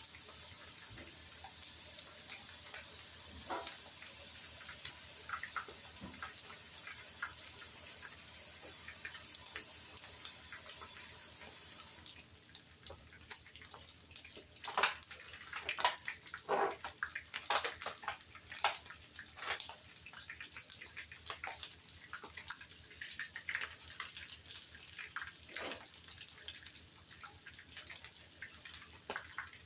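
Kitchen sink tap running while hands are washed; about twelve seconds in the steady rush stops and is followed by irregular splashes and drips.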